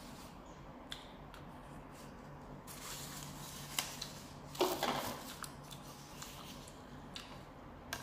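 Close-miked eating sounds of a person chewing beef noodle soup: soft chewing and mouth noises with a few small clicks, and a louder rush of noise about halfway through.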